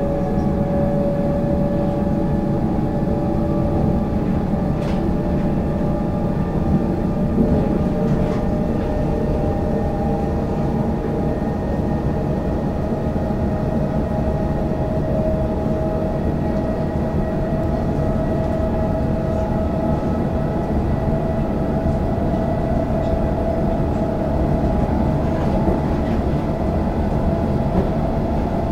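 Cabin noise inside a Comeng electric suburban train running along the line: a steady rumble of wheels on rail, with a motor whine that climbs slowly in pitch as the train gathers speed. A few faint clicks come through.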